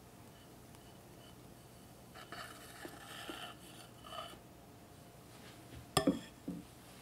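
Metal offset spatula spreading and smoothing soft chocolate whipped cream on a cake, a soft, uneven scraping for about two seconds. Near the end there is one sharp clink, then a lighter knock.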